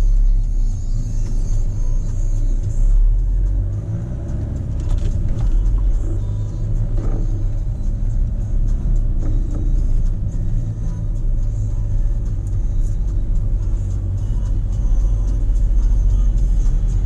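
Car driving in slow city traffic, heard from inside the cabin: a steady low engine and road rumble.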